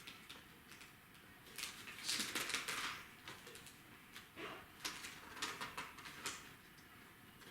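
Thin Bible pages being turned and rustling in short irregular bursts. The pages of this new Bible are hard to turn. The longest rustle comes about two seconds in, with smaller flicks later.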